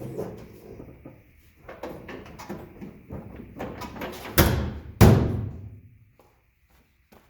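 Aluminium truck toolbox being shoved and yanked in the UTV's bed to test that it is held fast: a run of clunks and rattles, then two loud bangs about half a second apart a little past the middle, each with a short ringing tail.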